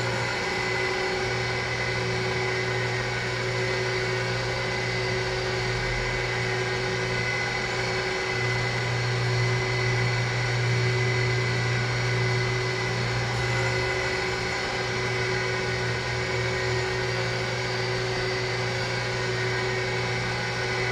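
Surface grinder running steadily and grinding a workpiece: a constant motor and spindle hum with a higher whine over a grinding hiss.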